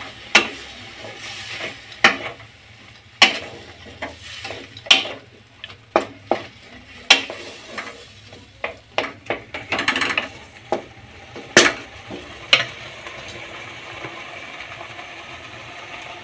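Wooden spatula stirring chopped papaya and mango frying in oil in a kadai, with irregular knocks and scrapes against the pan over a low sizzle. The knocks stop about three-quarters of the way through, leaving the steady sizzle of the frying fruit.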